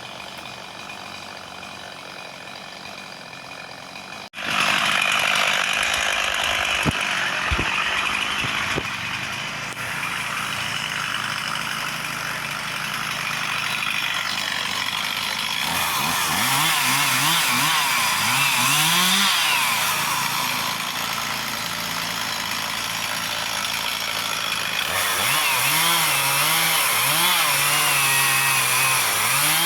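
Chainsaw cutting a tree limb, its engine pitch rising and falling again and again. It is fainter for the first few seconds and becomes much louder suddenly about four seconds in.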